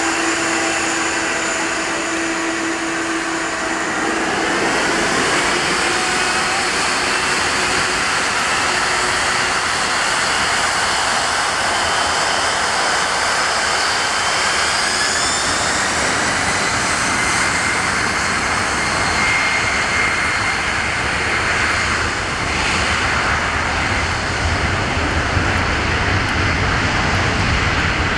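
Boeing 747's four jet engines spooling up to take-off thrust, with a rising whine about four seconds in, then running steadily as the airliner makes its take-off roll. A deep rumble grows near the end.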